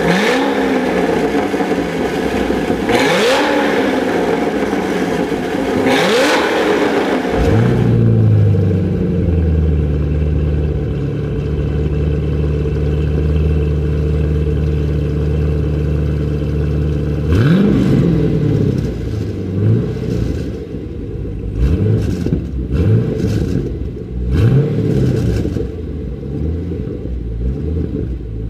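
A 2007 C6 Chevrolet Corvette Z06's 7.0-litre V8 is revved three times through its Corsa exhaust, each rev climbing and falling back. Then a 2014 Chevrolet Camaro SS V8 with dual-mode exhaust idles steadily, is revved once, and is blipped in a series of quick short revs.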